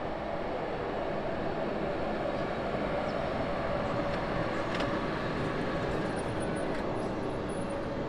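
Electric locomotive hauling a train of couchette coaches slowly past over the station tracks: a steady rumble of wheels on rails with a faint steady hum, and a few faint high squeaks in the second half.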